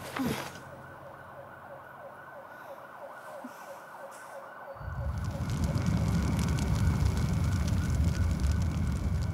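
A siren-like steady tone with a quick repeating warble, then from about five seconds in a loud low rumble with dense crackling, the sound of missiles launching and climbing.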